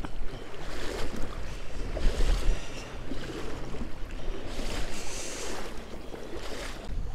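Wind buffeting the microphone in a low rumble, over the hiss and swish of moving river water, which swells and fades every second or so.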